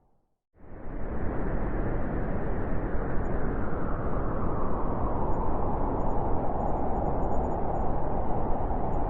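Blizzard wind blowing in a steady, dense rush, cut to silence for about half a second at the start before swelling back in; the wind grows stronger toward the end.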